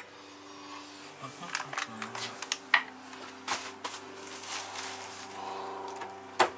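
SharkBite push-to-connect plumbing fittings and their packaging being handled and fitted under a sink, giving scattered sharp clicks and knocks, the loudest just before the end, over a steady low hum.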